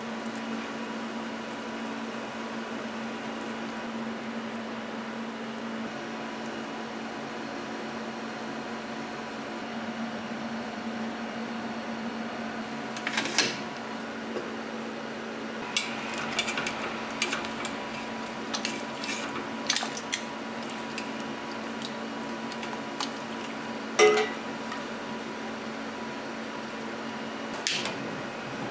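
A steady kitchen hum under a stainless pressure cooker being handled: scattered clicks and metallic knocks as its lid and locking handle are worked. The loudest is a single ringing clank about two-thirds of the way through.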